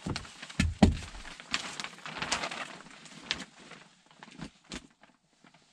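Polyethylene vapor barrier sheet crinkling and rustling as it is handled, with a dull thump just under a second in; the rustling dies away near the end.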